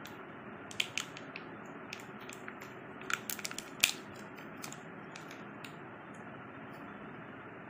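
Plastic packaging crinkling and light clicks as a phone charger and its coiled cable are handled and unwrapped, with a cluster of sharp crackles about three to four seconds in, over a steady hiss.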